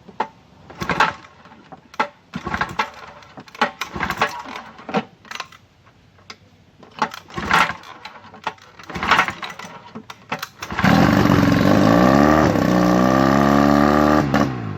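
A 1959 Johnson QD-20 10 hp two-stroke twin outboard being pull-started with its recoil rope: a series of separate pulls turning it over without firing, then about eleven seconds in it catches and runs loudly, its revs dropping and settling about a second and a half later. This is its first run after its dead ignition was brought back by cleaning and gapping the points.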